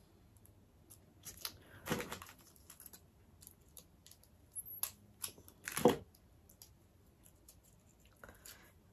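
Packaging of a liquid jelly tube crinkling and tearing in short, scattered rustles and clicks as it is worked open by hand.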